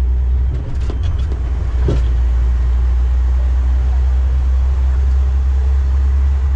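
Steady low rumble of a tourist road train riding along, heard from inside its open-sided carriage, with a few short knocks in the first two seconds.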